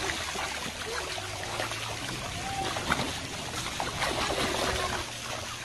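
Shallow water splashing and trickling as a small child crawls and wades through it: a steady wash of water noise with many small irregular splashes.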